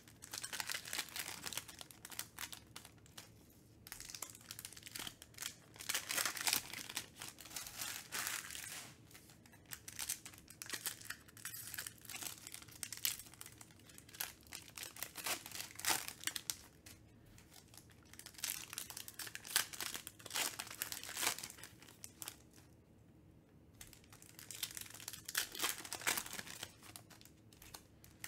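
Foil trading-card pack wrappers crinkling and tearing as they are ripped open by hand. The sound comes in irregular bursts with short pauses between, the longest pause about 23 seconds in.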